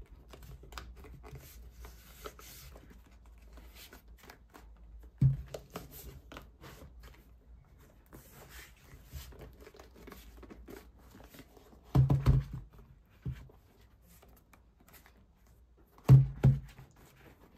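A rugged diagnostic tablet with a rubber bumper handled on a tabletop: soft rustling and small clicks as the bumper edge is pressed down, a knock about five seconds in, a cluster of knocks around twelve seconds, and a louder double knock near the end as the tablet is set down and turned over.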